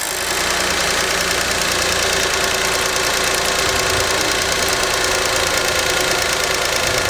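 Honda Vamos engine idling steadily, heard up close in the open engine bay.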